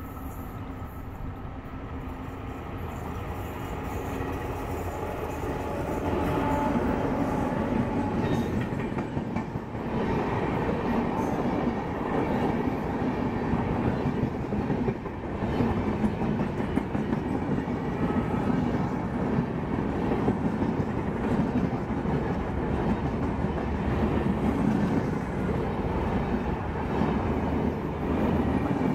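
Express passenger train hauled by a WAP-5 electric locomotive running through a station without stopping. The noise rises over the first six seconds as the locomotive approaches. Then comes the steady wheel-on-rail noise of the coaches passing close by at speed.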